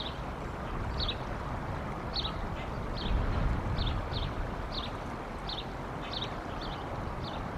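A small songbird repeating a short, slightly falling chirp a little under twice a second, over a steady rush of wind noise that swells in a gust about three seconds in.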